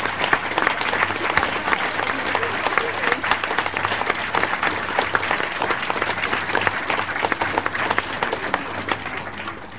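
Audience applauding, many hands clapping at once, dying away near the end, over a low steady hum, as heard on a portable cassette tape recording.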